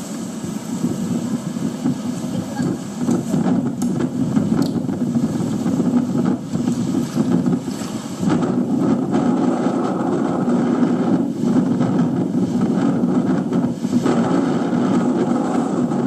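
Strong typhoon wind blowing in gusts, buffeting the microphone, with a steady low noise that swells and dips every second or so.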